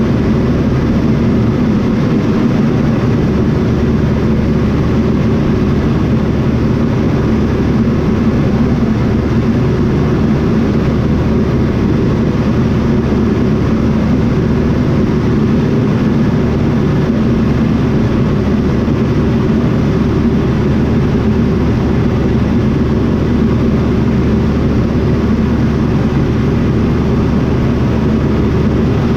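Airplane's propeller engine running steadily at a constant speed, with no change in pitch or level.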